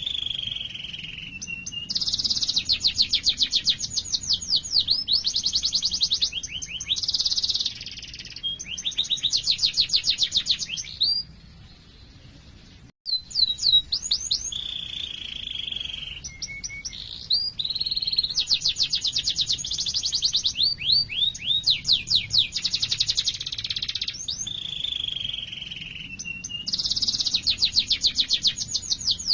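Domestic canary singing a long song of fast rolling trills and repeated 'cuit cuit' notes, with sliding whistled notes between the trills. The song breaks off briefly about twelve seconds in, then starts again.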